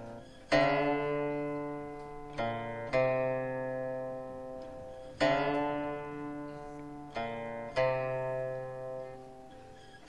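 Background music of a plucked string instrument: about six slow, separate notes, each ringing out and slowly fading.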